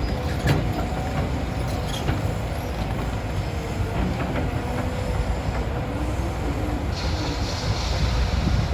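CAT 325 hydraulic excavator working as it digs: a steady low engine rumble with a wavering squeal and scattered metal clanks, and a hiss that comes in near the end.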